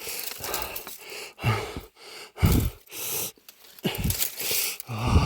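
A man gasping and moaning in distress: about five short breathy cries, roughly one a second, several falling in pitch.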